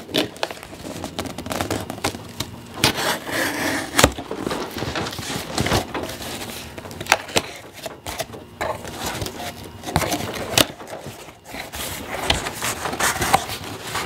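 Box cutter slitting packing tape on a cardboard box, then the tape tearing and the cardboard flaps scraping and knocking as the box is pulled open, with irregular sharp clicks and rustles throughout.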